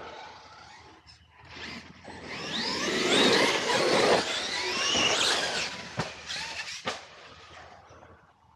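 Electric RC monster truck driving over dirt jumps, its motor whine rising and falling with the throttle, loudest around the middle. Two sharp knocks follow about two-thirds of the way in.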